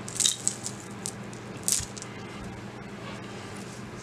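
Costume jewelry being handled: metal chain and beads of a multi-strand silver-tone necklace clinking and rustling as it is picked up, with two brief louder rustles, about a quarter second in and near the middle.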